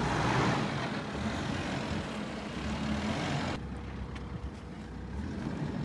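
Force Gurkha's diesel engine running as the SUV works through loose sand, with a loud rushing hiss over it. The hiss stops suddenly about three and a half seconds in, leaving the low, steady engine sound.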